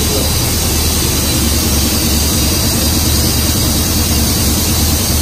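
Yamaha TT-R230's air-cooled single-cylinder four-stroke engine running steadily at a constant speed on a chassis dynamometer, with a loud, even rushing noise over its low rumble.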